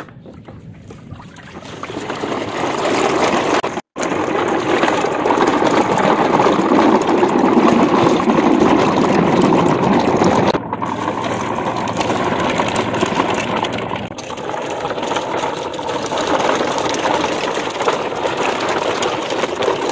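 Steady rush and splash of shallow muddy water as a train of plastic toy trailer trucks is pushed through it. The sound cuts out for an instant about four seconds in and changes abruptly again about ten seconds in.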